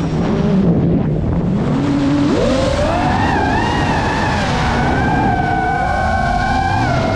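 GEPRC Mark 5 FPV quadcopter's motors and propellers whining. The pitch stays low for the first two seconds, climbs sharply about two seconds in, then wavers up and down with the throttle.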